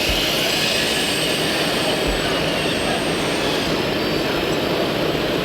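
Steady whirring of radio-controlled model truck motors and gearboxes, with a thin high whine that stops about three and a half seconds in.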